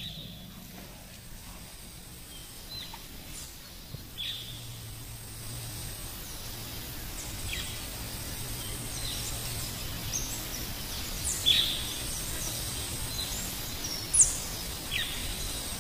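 Steady wash of a monsoon stream with a bird giving short, sharp downward-slurred calls every second or few, two of them louder near the end.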